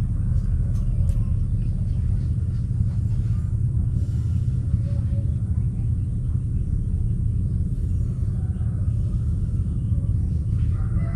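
A steady low rumble throughout, with no rhythm or sudden sounds.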